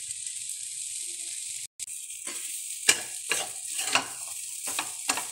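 Rice being stirred into sizzling tomato masala in a stainless steel kadai. A steady sizzle runs throughout, and after about two seconds a steel spatula starts scraping and turning against the pan in repeated strokes, about two a second.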